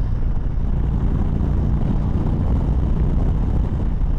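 2019 Indian Chieftain Dark Horse's Thunder Stroke 111 V-twin engine running steadily at road speed, with wind rush over the bike.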